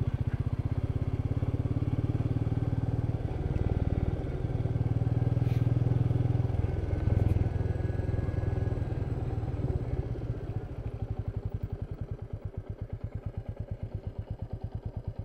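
Royal Enfield Meteor 350's single-cylinder engine running steadily under way. About ten seconds in it eases off to low revs, and its firing pulses come through as a slow, even thump.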